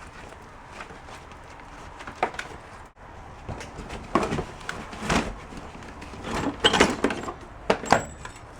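Household items being handled and moved about: a run of knocks and clatters, the loudest about five and seven seconds in.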